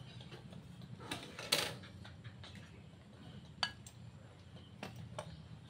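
Kitchen utensils scraping and tapping against dishes: a longer scrape about a second and a half in, then a few light separate clicks, over a low steady hum.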